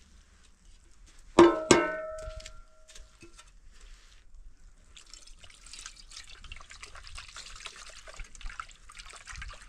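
Two sharp knocks about a second and a half in, ringing on with a clear tone that fades over a second or two; from about halfway on, a steady splashing, trickling water sound.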